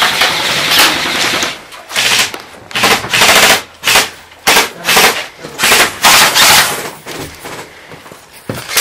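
Airsoft rifles firing full-auto bursts, each a rapid rattle of shots lasting about half a second to a second and a half, about five bursts with short gaps, fading near the end.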